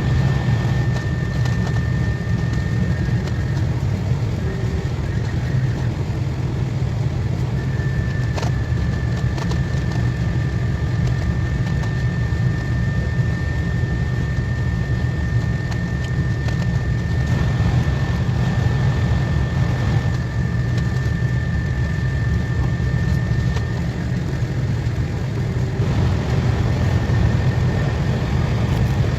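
KTX high-speed train running at speed, heard from inside the carriage: a steady low rumble with a thin, steady high whine over it.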